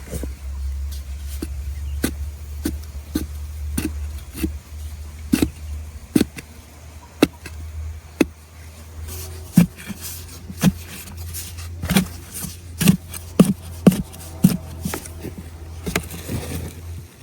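Repeated sharp strikes, one to two a second and coming closer together and louder in the second half, over a steady low hum.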